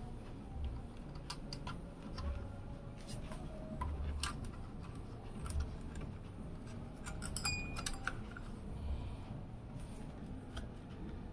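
Irregular light clicks and taps of hands handling and fitting small computer parts, with a cluster of quick clicks about two-thirds of the way through.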